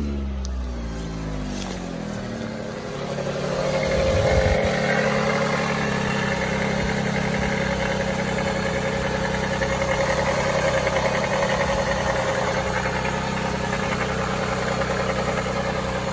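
2008 Dodge Avenger's 2.4-litre Dual VVT four-cylinder engine running. Its revs fall back over the first second or two, then it idles steadily, louder from about four seconds in once heard close over the open engine bay.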